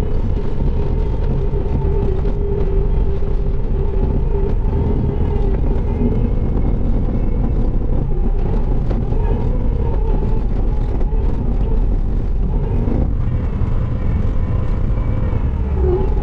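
Bobcat T650 compact track loader's diesel engine running steadily, heard from inside the cab, with a drone and a faint whine that wavers slightly in pitch.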